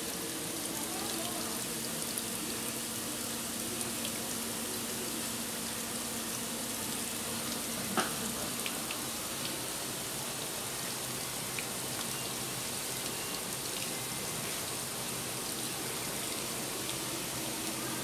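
Steady hiss of water bubbling and churning in aerated live-fish tanks, with a low steady hum that stops at a single sharp click about eight seconds in.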